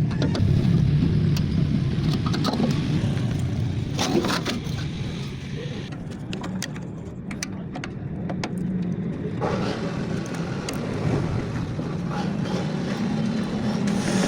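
A steady low rumble like passing road traffic, with scattered sharp clicks and knocks of parts being handled. It drops quieter for a few seconds midway, then picks up again.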